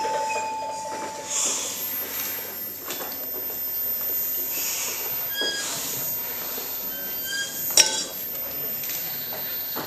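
Live experimental electronic ensemble noise: a hissing wash with a thin, very high steady whistle and scattered short squealing tones. One sharp click about eight seconds in is the loudest moment.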